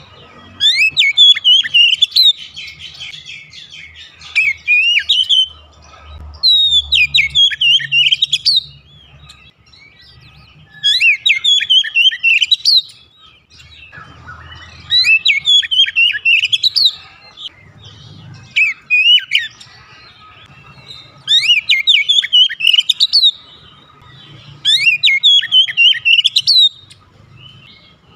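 Oriental magpie-robin singing: loud phrases of quick, rapidly rising and falling clear notes, about seven bursts of song each a couple of seconds long, with short pauses between them.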